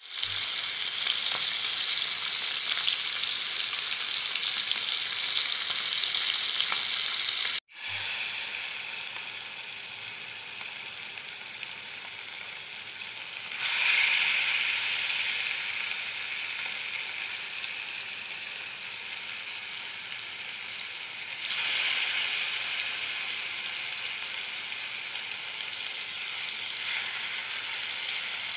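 Hot oil sizzling steadily in a nonstick pan as spice-marinated freshwater fish pieces shallow-fry. The sizzle cuts out briefly about 8 seconds in, and it jumps louder twice, about 14 and 22 seconds in, as more fish pieces go into the oil, then settles.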